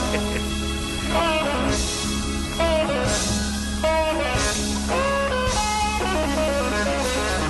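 Rock music led by an electric guitar playing bending, sliding notes over a steady low drone.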